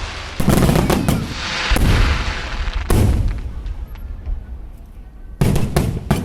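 Aerial fireworks shells bursting: several booms in quick succession about half a second in, single booms near two and three seconds, and a cluster of bangs near the end, with crackling between the first bursts.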